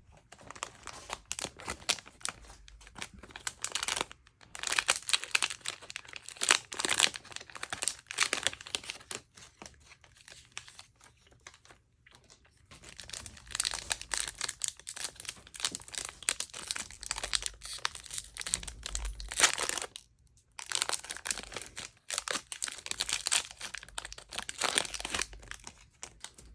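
Plastic trading-card pack wrappers (Panini Mosaic NBA packs) crinkling and tearing as they are ripped open by hand. The crinkling comes in long bursts with short pauses between.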